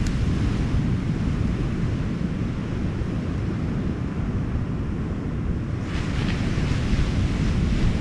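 Wind buffeting the microphone in a steady low rumble over the hiss of ocean surf, with a wash of surf swelling up about six seconds in.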